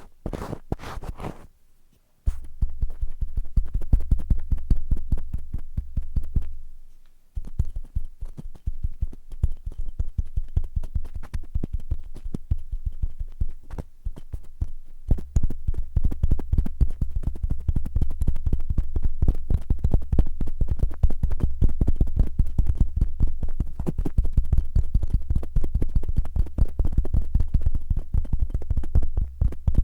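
Cotton swabs scratching and rubbing fast and roughly right on an ear microphone: a dense run of quick scratchy clicks over a deep rumble. It stops briefly about two seconds in, the rumble drops out around seven seconds in, and the rumble comes back about halfway through.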